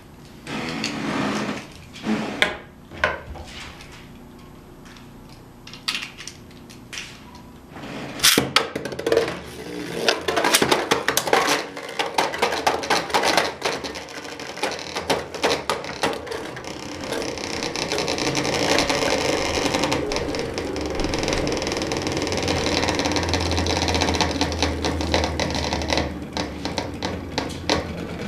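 Beyblade-style spinning tops in a plastic battle stadium: a sharp crack about eight seconds in as they hit the stadium, then quick clicking and clattering as they collide and knock against the walls, settling later into a steadier rattling whir of a top spinning on the plastic floor.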